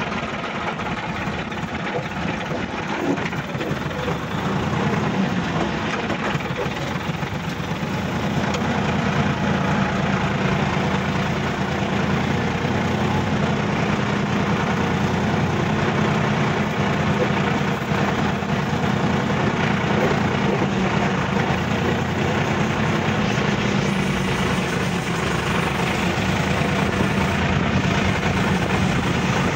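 Sonalika DI-50 RX tractor's diesel engine running steadily while the tractor drives along, heard close up from the driver's seat. It gets a little louder about eight seconds in.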